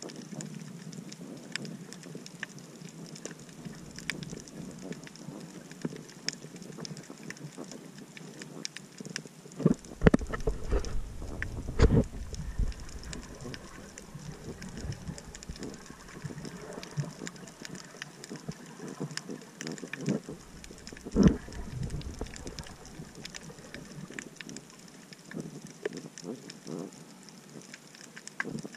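Underwater sound at a coral reef, heard through a snorkeler's camera: a steady crackle of small clicks. A few louder low thumps come about ten to thirteen seconds in and again about twenty-one seconds in.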